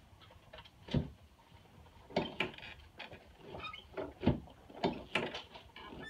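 Short knocks and pops as a chiropractor thrusts down with stacked hands on a prone patient's lower thoracic and upper lumbar spine, the padded adjusting table knocking under the pushes. The strongest knock comes about a second in, and several more follow over the next few seconds.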